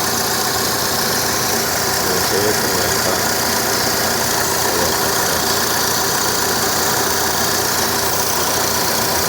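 Chevrolet Aveo engine idling steadily, carrying an odd repetitive noise from the engine bay that the owner cannot identify and that seems to rise at times.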